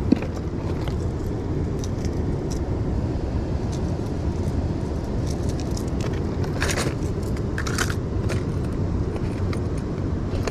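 Steady low rush of river water flowing below a dam, with a few short clicks and rattles: one at the very start and a cluster from about six to eight and a half seconds in.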